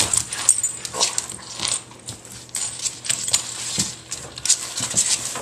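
Patterdale terrier's claws scrabbling and scratching on a hardwood floor as he paws under a dresser for a bone he can't reach. It is a quick, irregular run of scratches and clicks, with the metal tags on his collar jingling.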